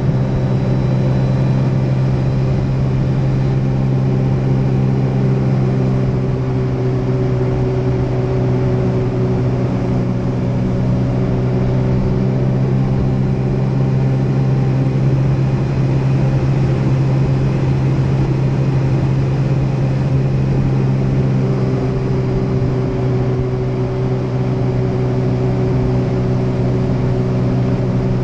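Jet ski engine running at a steady speed, one even motor note with a low rumble of water and wind beneath it.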